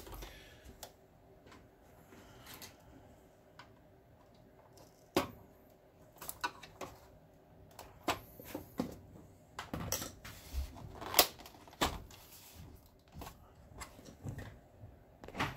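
Screwdriver backing screws out of a BenQ HT2050 projector's plastic housing, with scattered clicks, taps and knocks of plastic as the case is handled. The loudest knock comes about eleven seconds in.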